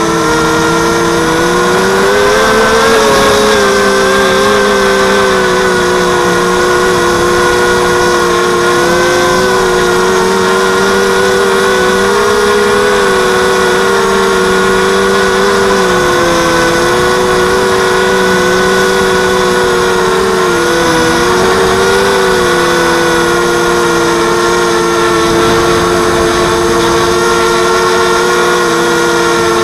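Brushless motors and propellers of a 230-size mini quadcopter running in flight: a steady multi-toned hum whose pitch wavers up and down with throttle changes.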